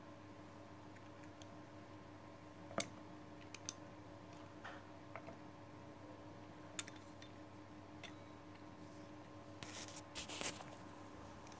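A few light clicks and taps from handling a filled pastry and utensils on a wooden cutting board, with a short scratchy rustle near the end, over a steady low hum.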